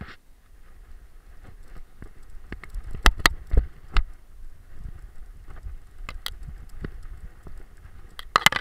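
Handling noise from a camera strapped to a black dog as it moves about: scattered sharp knocks and bumps, loudest in a cluster about three seconds in, over a low rumble, with a brief rustle near the end as it pushes through long grass.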